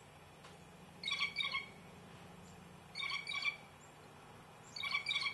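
A bird calling, a short burst of two or three bright notes repeated about every two seconds, over a faint steady low hum.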